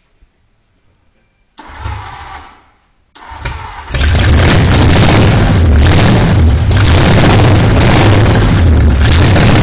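First start of a freshly built Ford flathead V8 with twin carburettors. About a second and a half in, a short first burst dies away; a second try a moment later catches, and from about four seconds in the engine runs loud and steady.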